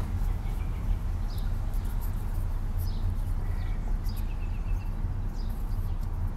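Steady low rumble of wind and road noise in an open-top convertible cruising slowly, with faint short bird chirps and a brief trill above it.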